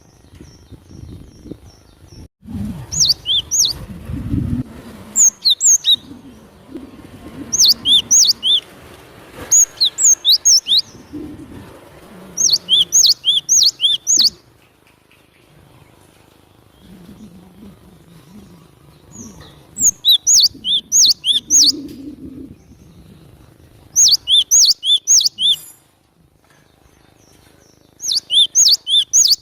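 Cinereous tit (glatik batu) singing: loud bouts of quick, high whistled notes, a higher and a lower note alternating, repeated about eight times with short pauses between bouts.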